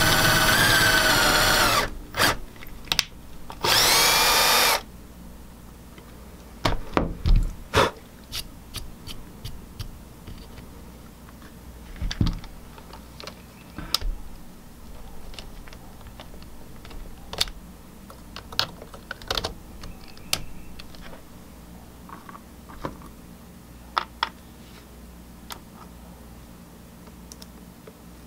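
Power drill spinning a countersink drill bit into a wooden board, running steadily and stopping about two seconds in. Two quick blips of the trigger follow, then one more short burst of drilling. After that come scattered light knocks and clicks of tools and wood being handled.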